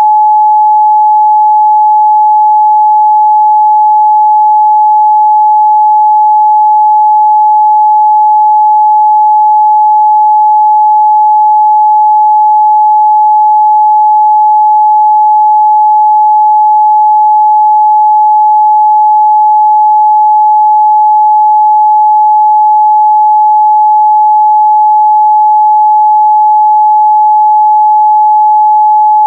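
Continuous 852 Hz sine-wave test tone, one pure steady pitch at constant loudness.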